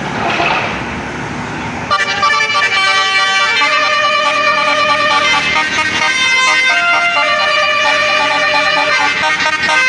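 A bus's 'basuri' telolet horn, a multi-tone musical air horn, plays a melody of held notes that starts suddenly about two seconds in. Before it there is a loud rush of road noise.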